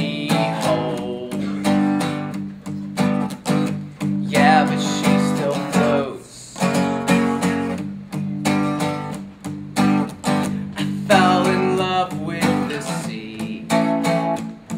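Acoustic guitar strummed in a steady rhythm, playing chords as a song accompaniment.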